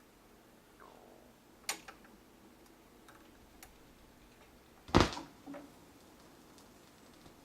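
Stylus of a Technics SL-1300 turntable running in the lead-in groove of a vinyl record before the music starts: faint surface noise with scattered clicks, a sharper crackle just under two seconds in and a loud pop about five seconds in.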